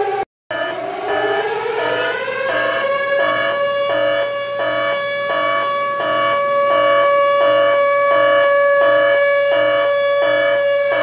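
Alarm siren sound effect: it cuts out briefly just after the start, winds up over about two seconds to a steady held tone, and begins to wind down near the end, with a pulsing beep repeating about twice a second underneath.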